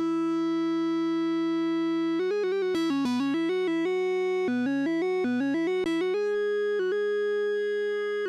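Korg Minilogue Bass analog synthesizer playing with its two oscillators tuned apart, one lower and one higher, so each note sounds at two pitches at once. A long held note gives way to quick runs of short notes about two seconds in and again around four and a half seconds in, then longer held notes.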